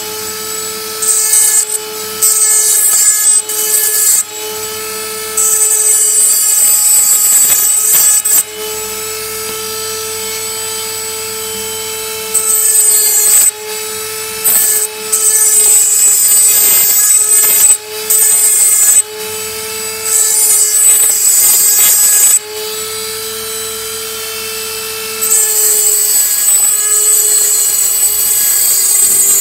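Dremel rotary tool running steadily with a diamond cutting disc, its motor whining, while a porcelain piece is pressed against the flat face of the spinning disc again and again; each contact brings a loud, high grinding hiss as the porcelain is ground flat and its sharp edges taken off.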